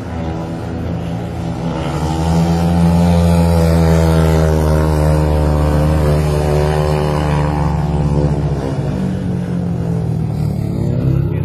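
Speedway motorcycle's single-cylinder methanol engine running hard around the track. Its pitch climbs over the first two or three seconds, holds, drops away after about seven seconds, and begins to climb again near the end.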